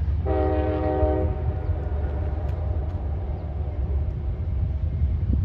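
A distant passenger train's horn sounds one chord of several notes for about a second, then fades slowly away as it echoes. A steady low rumble runs underneath.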